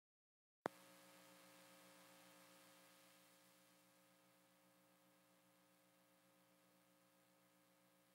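Near silence: a sharp click less than a second in, then a faint steady hum of several tones that slowly fades.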